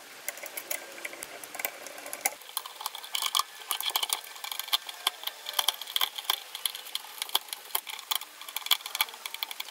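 Hand ratchet clicking rapidly as the through-bolts of a GM SI-series alternator's housing are run down, with small metal ticks and rattles.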